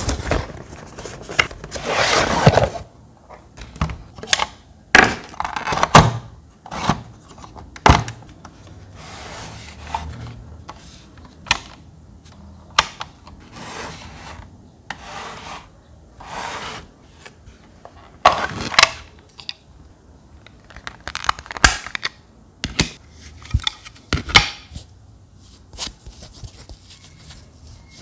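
Packaging and handling noise: a cardboard box being opened and a small plastic mini fan being lifted out and taken apart, with irregular scrapes and rustles broken by plastic clicks and knocks.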